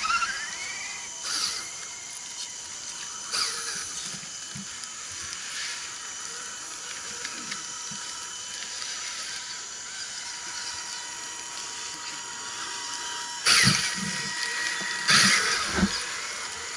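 Electric motors of scale RC crawler trucks whining as they crawl over roots, the pitch rising at the start. A few sharp knocks and scrapes of tyres and chassis on the trail, the loudest two near the end.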